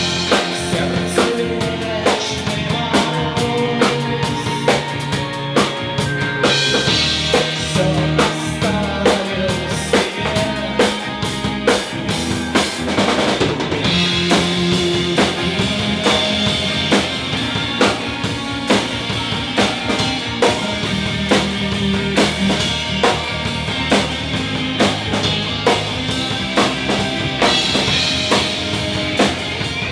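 Live band playing through the club's sound system, with a drum kit keeping a steady beat of about two strong hits a second under the other instruments.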